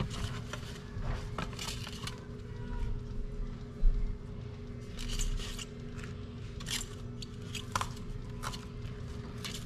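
Lettuce leaves being pulled apart and torn by hand: a series of crisp tearing and crackling rustles, with a dull thump about four seconds in.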